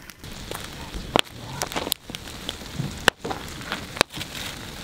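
Wood campfire crackling: a steady hiss broken by irregular sharp pops.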